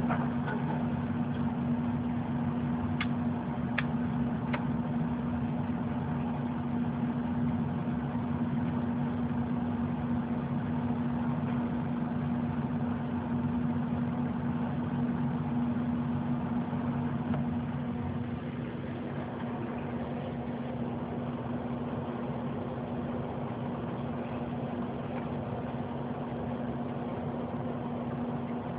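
Steady low machine hum with one strong tone, getting a little quieter about two-thirds of the way through, with three faint clicks a few seconds in.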